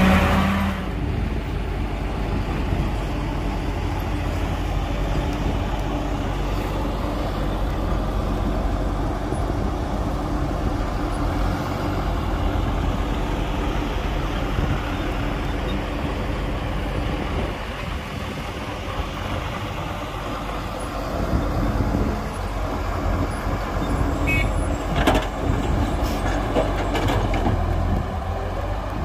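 Heavy diesel engines of an excavator and dump truck running steadily at a work site, with a few short clanks near the end.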